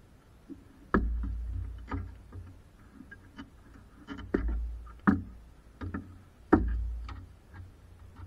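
Irregular knocks and clicks of parts and tools being handled on a car body, a dozen or so at uneven spacing, the loudest about a second in and near four and a half, five and six and a half seconds in, each followed by a brief dull low rumble.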